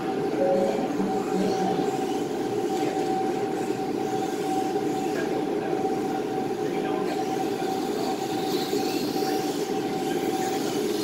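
Steady mechanical hum: an even rushing noise with a constant mid-pitched tone that does not change.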